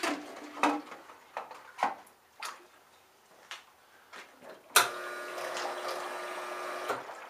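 A nitrogen-burst agitation system firing: a sharp click as the valve opens, then about two seconds of steady, buzzing hiss as the gas burst bubbles through the developer tank, cut off abruptly. Before it come a few light clicks and knocks.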